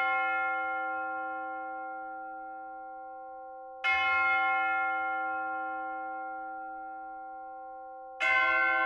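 Background music of bell-like chimes. A chord is struck about every four seconds, the strikes falling about four seconds in and again near the end, and each chord rings on and slowly fades.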